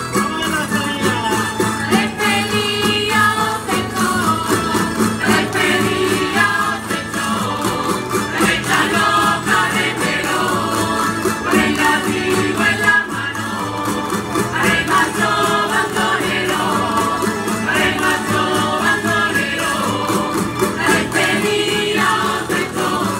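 Live Spanish folk music: a string band of guitars playing a steady, rhythmic dance tune with voices singing, over a regular percussive beat.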